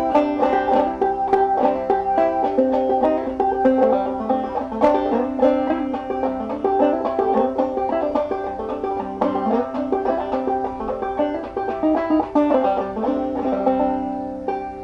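Five-string banjo played clawhammer style in double C tuning: a quick, steady run of plucked melody notes in the key of C. Near the end the playing stops on a chord that rings and fades.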